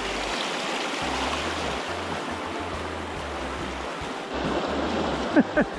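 Fast-flowing river rushing over rocks at close range, a steady roar of water. Near the end, two short, sharp squeaks falling in pitch stand out above it.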